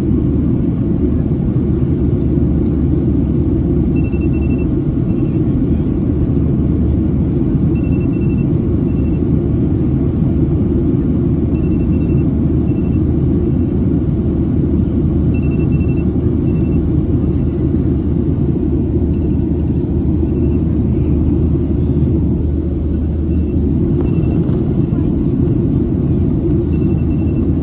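Steady low rumble of a Boeing 737-700 in flight, engine and airflow noise heard inside the passenger cabin. Faint short high beeps come in small groups about every four seconds.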